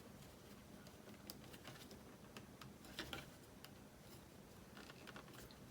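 Faint, scattered light clicks and taps of small plastic parts being handled, as a thumb-steering adapter is slid along an RC transmitter's steering wheel.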